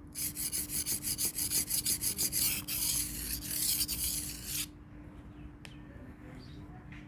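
Pasador knife blade scraping back and forth on a wet Payakumbuh natural whetstone of about 1000 grit, in a quick, even rhythm of about four to five strokes a second, then a longer continuous scrape, stopping abruptly a little past halfway. The scraping is not very shrill.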